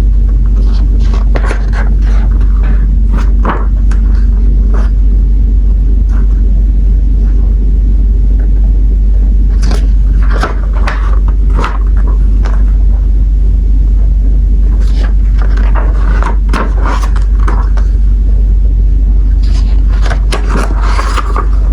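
Sticker sheets and their packaging being handled, with short scrapes and crinkles coming in several clusters. Under them runs a constant heavy low rumble, the loudest thing in the clip.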